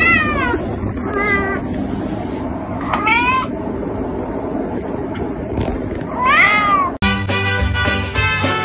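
A cat meowing four times, each meow rising and then falling in pitch. Near the end, music with a steady beat takes over.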